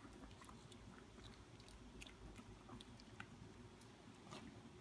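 Small dog chewing a morsel of food taken from the hand: faint, scattered little clicks and crunches.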